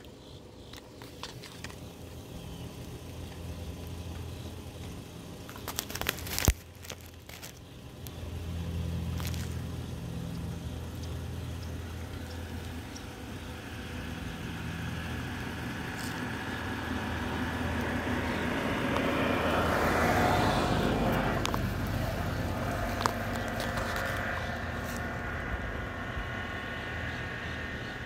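Engine noise of a passing motor vehicle. It rumbles low, swells to its loudest about two-thirds of the way in, then eases off. A few sharp knocks come about six seconds in.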